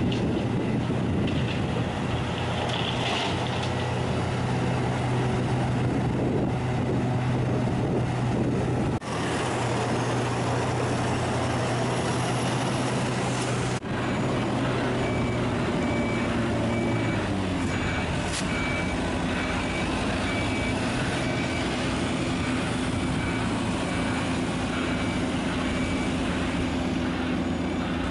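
Heavy diesel engines of a hydraulic excavator and a tipper truck running steadily. About halfway through, a vehicle reversing alarm starts beeping at even intervals, and an engine note drops briefly.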